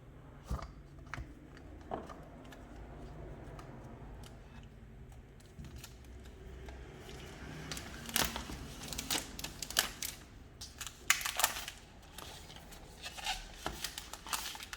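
Product packaging being handled and torn open: a scattered run of crinkles, rips and small clicks, busiest in the second half.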